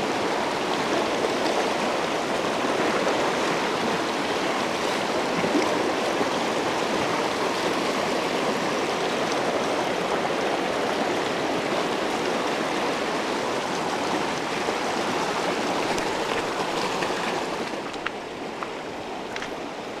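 Mountain stream flowing over rocks: a steady, even rush of water, a little softer near the end.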